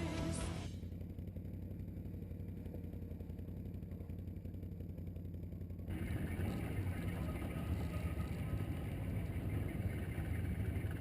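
ATV engine running during a ride, a steady low hum. About six seconds in it grows louder and noisier, with more rattle and wind.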